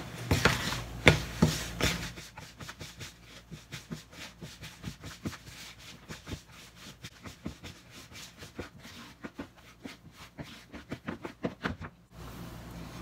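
Rubber spatula folding flour and matcha powder into whipped egg batter in a plastic bowl: a steady run of short, soft scraping strokes, with a few louder knocks in the first two seconds. The strokes stop just before the end.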